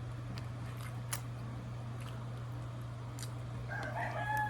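Sparse clicks and cracks of crab shell being eaten over a steady low hum. Near the end a rooster starts crowing.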